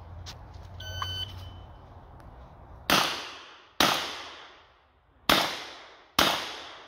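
An electronic shot-timer start beep about a second in, then four shots from a Smith & Wesson 929 revolver chambered in 9×19 mm, fired in two pairs with a longer pause between the pairs. Each shot is followed by a long echo.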